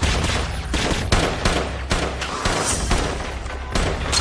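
Dense gunfire from automatic rifles and machine guns in a film battle soundtrack: many shots overlapping in rapid bursts over a steady low rumble.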